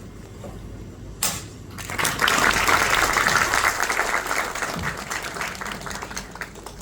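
An audience clapping: the applause swells about two seconds in and slowly dies away over the next few seconds. Just before it there is a short, loud burst of noise.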